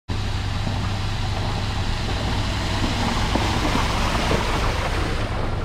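SUV engine running steadily as it drives through a shallow stream across a dirt track, its tyres churning and splashing the water.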